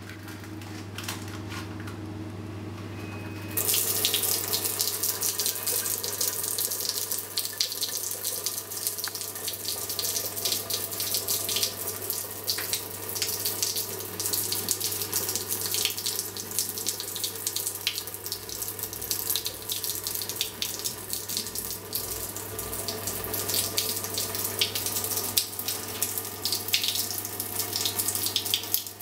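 Three-way kitchen faucet turned on about three and a half seconds in, running a thin stream of reverse-osmosis filtered water that splashes steadily into the sink. A steady low hum runs underneath.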